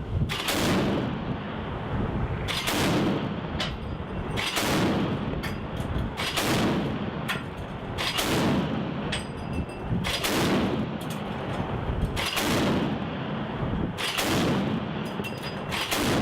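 Mk 38 25mm gun mount's M242 Bushmaster chain gun firing single shots, about eight heavy reports spaced roughly two seconds apart, each trailing off in a long echoing rumble.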